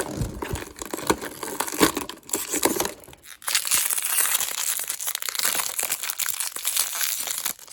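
Crinkling and crackling of plastic toy packaging being torn and crumpled open by hand, with scattered crackles at first and then about four seconds of steady dense crinkling.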